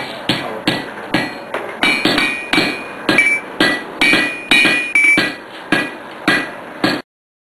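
Blacksmith's hand hammer striking a hot steel tong blank on an anvil, about three blows a second, each with a bright ring from the anvil. The hammering cuts off abruptly near the end.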